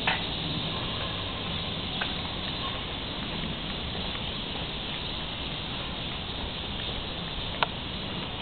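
Steady outdoor hiss, strongest in the high range. Over it come a few sharp clicks: one right at the start, one about two seconds in, and a louder one near the end.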